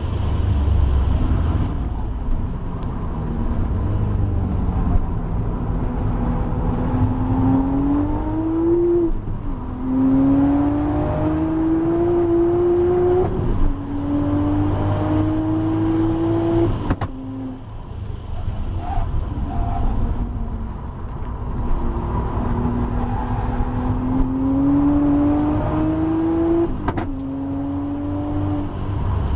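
Audi B5 RS4's twin-turbo V6 under hard acceleration on track, heard from inside the car: the engine note climbs steadily in several long pulls, each ended by a quick gear change that drops the pitch. About two-thirds of the way through the revs fall back to a quieter spell before it pulls hard again.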